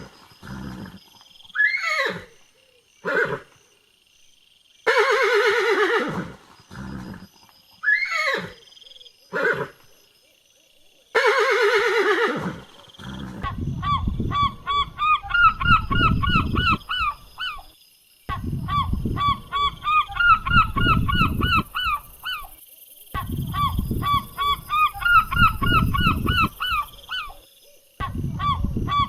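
Horse whinnying several times in long, falling calls, with shorter calls between. About thirteen seconds in it gives way to a flock of waterfowl, likely geese, honking rapidly and continuously in long stretches with brief pauses.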